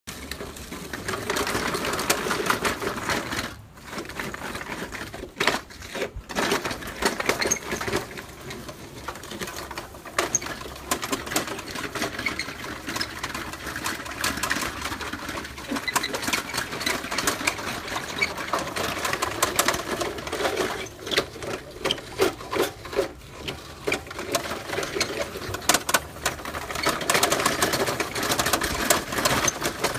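Homemade bulldozer running: a small motor whirring with a fast, continuous mechanical clatter, dipping briefly a couple of times early on.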